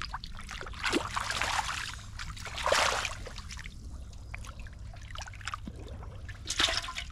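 Water splashing in a shallow muddy pond as a fish thrashes and hands grab at it in the water, in bursts about a second in, near three seconds and again near the end.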